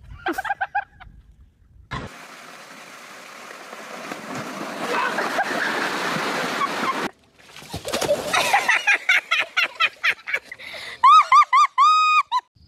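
Water splashing and rushing for about five seconds as a man slides down a tarp water slide into a backyard pool. The sound cuts off suddenly.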